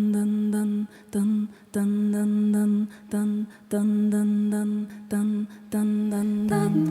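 A cappella vocal group opening a jazz song: one voice repeats a single sung note in short, rhythmic phrases, each set off by a hissing hi-hat-like mouth sound. Near the end a lower bass note and other voices come in with a moving harmony.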